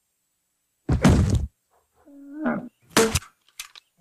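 Cartoon sound effects: a heavy thud about a second in, a short grunt-like voice sound around two seconds in, then a second heavy thud about three seconds in, with a few light clicks after it.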